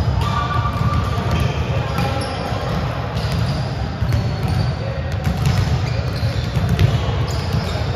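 Volleyballs being hit and bouncing on a gym floor, many impacts in quick succession, with short high squeaks in between.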